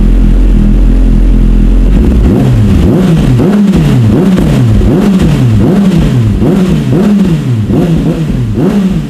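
Kawasaki ZX-6R inline-four with an Akrapovic exhaust idling, then from about two seconds in revved in quick, even throttle blips, about one and a half a second. It is a loud exhaust sound check.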